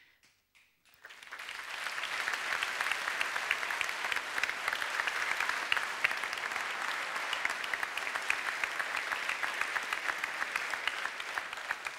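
Applause, many people clapping: it starts about a second in, swells quickly, holds steady, and thins near the end.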